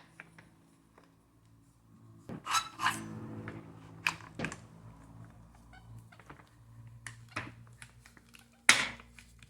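Sewing chair caster wheels being pushed back onto the chair, giving a series of clicks and knocks, the loudest near the end, over a steady low hum.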